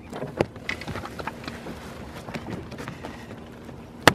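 A freshly landed kahawai flapping and being handled in a small boat: irregular knocks, slaps and rattles, with one sharp click near the end.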